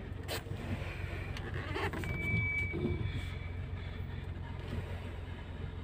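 Toyota Alphard moving slowly, heard from inside the cabin as a steady low hum, with a short high squeak about two seconds in.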